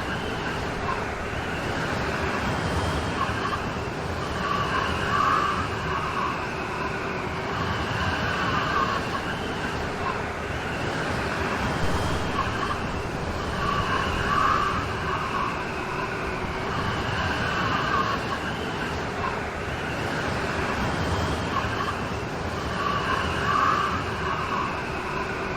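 Steady rain storm noise, a dense even hiss with a pattern of swells repeating about every four and a half seconds.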